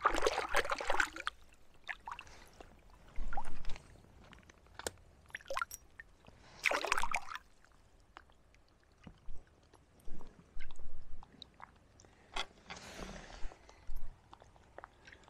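Irregular splashing and sloshing in shallow water as a small hooked trout is handled and unhooked by hand. There are several short splashes, the loudest about a second in and again around seven seconds, with light drips and knocks between them.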